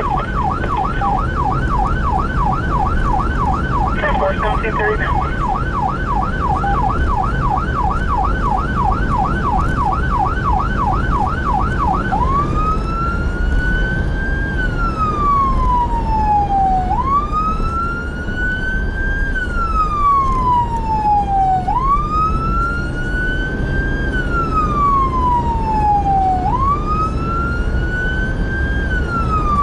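Electronic emergency-vehicle siren, heard from inside the responding fire-rescue vehicle over engine and road rumble. It sounds a fast yelp of about three sweeps a second, with a brief higher tone about four seconds in. About twelve seconds in it switches to a slow wail that rises and falls roughly every five seconds.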